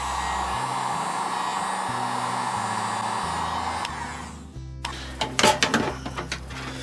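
Hot-air blower running steadily, heating new decals being laid onto an outboard motor's cowling, then switched off about four seconds in, followed by a few light clicks and knocks of handling.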